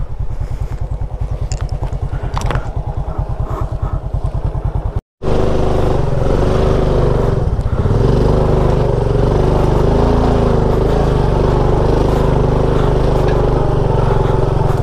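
Small motorcycle or scooter engine running at low revs with an even pulse, then, after a break about five seconds in, running louder and steadily at higher revs with a constant pitch, as when riding under throttle.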